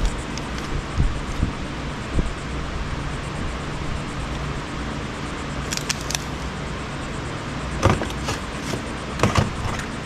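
Short clicks and clatters of hand tools and loose parts being handled while electronic equipment is taken apart, several in a cluster near the end, over a steady low hum.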